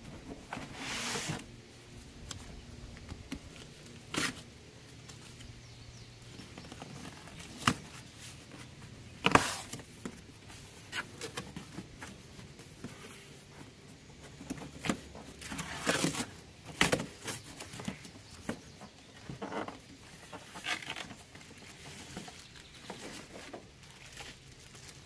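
Cardboard box being opened by hand: flaps pulled and torn open, with cardboard scraping and rustling and scattered knocks, the sharpest about nine seconds in.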